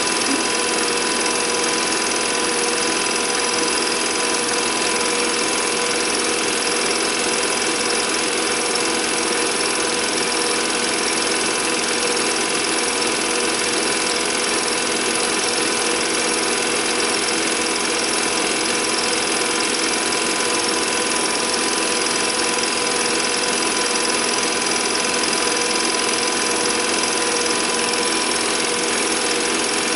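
Home-movie film projector running: a steady mechanical whir with a fast, even rattle.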